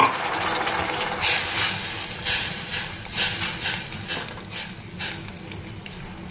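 Steel spoon stirring finger millet flour and hot water in a stainless steel pan, scraping along the pan in quick repeated strokes, about two a second. The stirring is done to keep lumps from forming.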